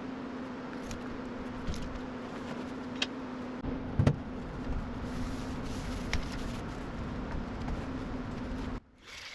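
A small motor running steadily with a hum and a rush of air, with a few light clicks and one louder knock about four seconds in. It cuts off abruptly near the end.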